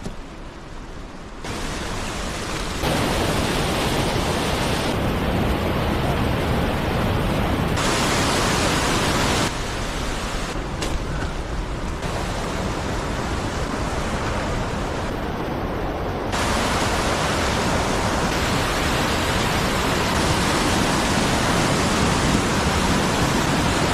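Steady, loud rushing noise with no distinct events, which changes abruptly in level and tone several times.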